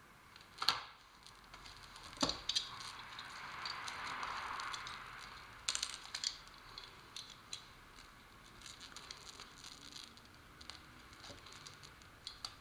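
Hands working plastic hopper material: crinkling and rustling with scattered sharp clicks, and a longer rasping rustle in the first half.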